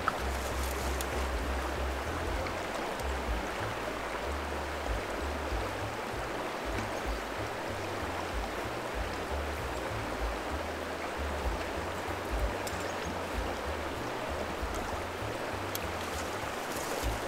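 Mountain stream water running steadily, with an uneven low rumble underneath.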